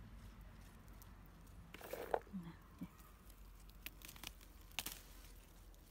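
Soft crackles and rustles of a currant bush as ripe currants are stripped from the stems by hand, with a few small clicks about two seconds in and again near the end.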